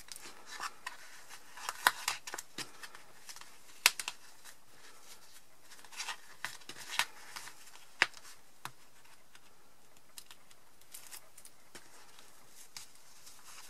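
Hands handling a small fabric-covered card cushion piece: scattered light clicks, taps and rustles, with a few sharper clicks about two, four and eight seconds in.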